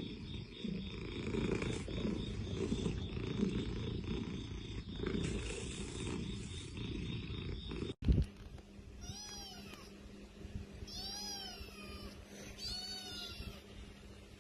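Domestic cat purring loudly, a low, throbbing sound that swells and fades in slow cycles. After a sudden cut with a thump, a kitten mews three times, high-pitched calls that rise and fall, about two seconds apart.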